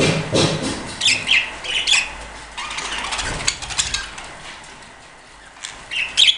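Budgerigars in a colony calling, with sharp squawks and chirps about a second in, again near two seconds, and loudest near the end.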